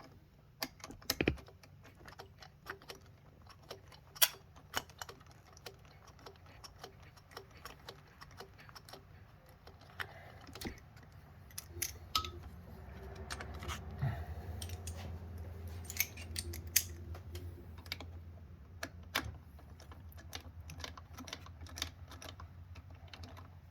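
Irregular light metallic clicks and taps of a hand-turned bit working the bolts of a high-pressure fuel pump down against its spring tension. A low steady hum underneath grows louder about ten seconds in.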